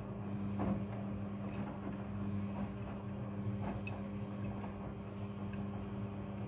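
Front-loading washing machine running: a steady motor hum, with a few soft swishes and ticks from the turning drum.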